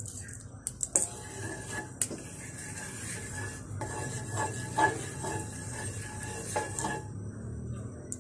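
Wooden spoon scraping and knocking against an aluminium frying pan while spreading cooking oil, with a scatter of sharp taps over a steady hiss that drops out about a second before the end.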